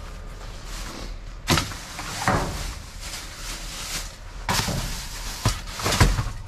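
Knocks, scrapes and rustling as a dumpster lid is held open and a grabber stick pokes among cardboard boxes and plastic bags inside the bin. There are several separate knocks, the sharpest about six seconds in.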